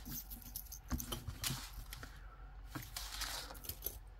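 Silver-tone metal chain and pendant clinking lightly as they are handled, a scatter of small irregular metallic clicks and jingles.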